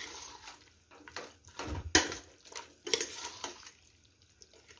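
Metal spoon stirring wet chicken masala in a steel pot: several scrapes against the pot at uneven intervals, dying away near the end.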